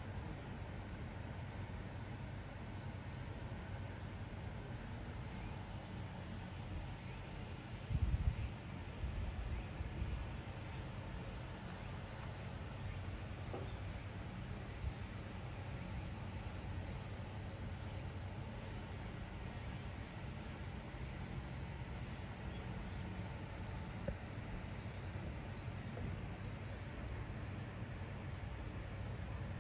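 Outdoor insects singing: a steady high-pitched buzz with a rhythmic chirp repeating about twice a second, over a low rumble of wind on the microphone, which briefly swells into a louder gust about eight seconds in.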